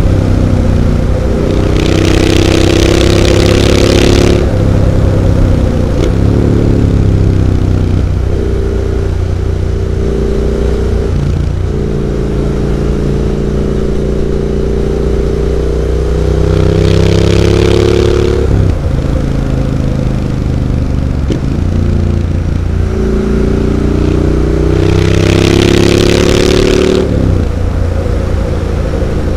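Triumph Street Scrambler 900's parallel-twin engine running loud through Zard exhaust pipes while the bike is ridden. The revs climb and then drop sharply several times, with a louder rushing hiss during the hardest pulls.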